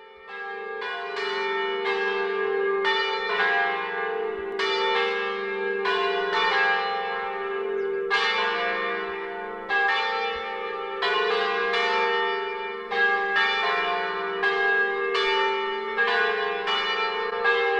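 Church bells ringing in a quick, even series of strikes, about two or three a second, each note ringing on into the next over a steady low hum.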